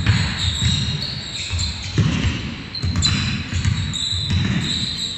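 Basketball being dribbled on a wooden gym floor, a run of irregular thuds, with players' feet moving on the court and voices calling out.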